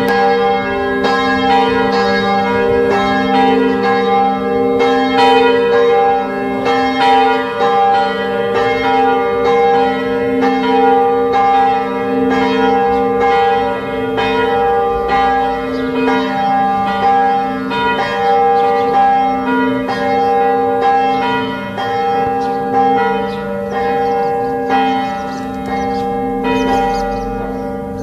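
Full peal of church bells tuned g', b', c♯'' and f♯'': several bells swinging and striking over one another in a continuous, overlapping ringing.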